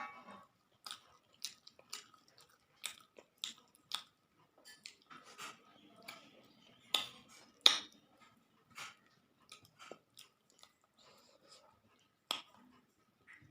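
Close-miked chewing and lip smacks of a person eating rice with fried Bombay duck (lote macher jhuri): irregular wet clicks, with two louder smacks a little past the middle.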